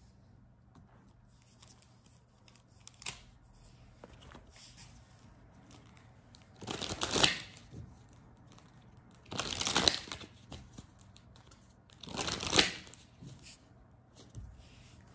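Tarot cards being shuffled by hand: three short bursts of shuffling about two and a half seconds apart, with faint card handling in between.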